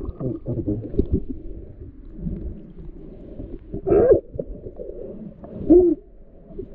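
Muffled underwater noise picked up by a submerged action camera: a low rumble with scattered knocks, and two short squeaky tones that rise and fall, about four seconds in and again near six seconds.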